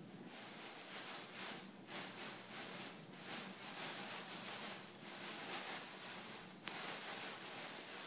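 Metal powder sprinkled into a Bunsen burner flame, burning off in a shower of sparks: a steady fizzing, crackling hiss that starts just after the beginning and swells and dips several times.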